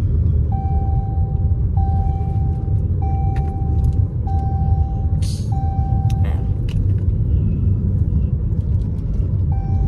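Car cabin noise while driving: a steady low road-and-engine rumble. Over it a steady beep of one pitch, each about a second long, repeats five times in a row and starts again near the end, with a short hiss about five seconds in.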